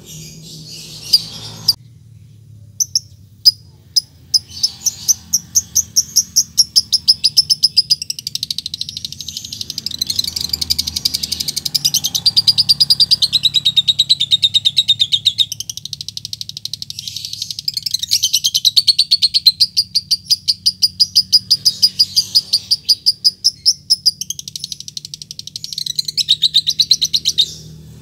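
Fischer's lovebird, a male, calling at a rival: a few separate sharp chirps at first, then a long, fast chattering trill of rapid high notes (the 'ngetik lanjut ngekek' call) with a short break midway.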